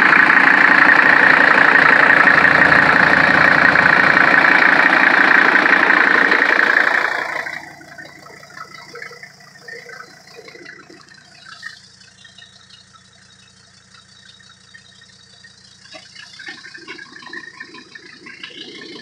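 Mercedes OM617 five-cylinder turbodiesel running loudly with its exhaust removed except for a short pipe, then shut off about seven seconds in; after that only faint scattered clicks and rustles.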